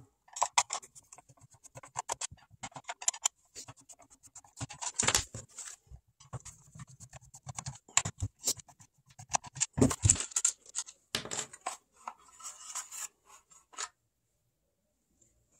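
A screwdriver clicking and scratching in screw heads as screws are backed out of a plastic cordless-tool battery pack case, with a few louder knocks of the pack being handled. The sound stops shortly before the end.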